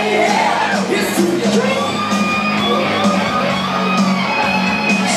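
Loud rock karaoke track with singing, and a crowd shouting and whooping over it.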